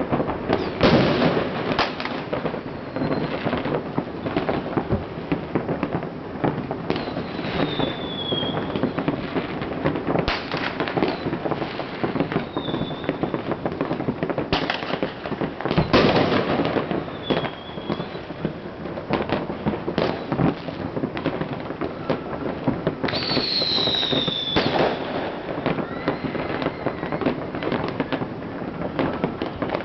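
Fireworks going off in many places at once: a dense, continuous run of bangs, pops and crackle, with the biggest bursts about a second in and about halfway through. Several short whistles that fall in pitch cut through the bangs now and then.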